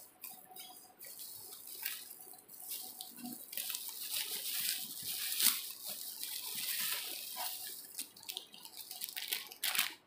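Bubble wrap and thin plastic packaging rustling and crinkling as it is pulled and unwrapped by hand, with many small crackles; it gets busier about three and a half seconds in.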